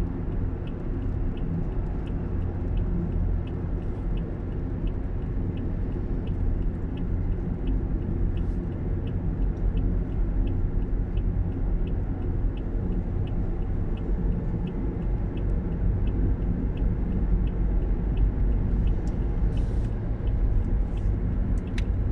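Steady low road and engine rumble heard inside a moving car's cabin, with the indicator relay ticking evenly, a little under two clicks a second.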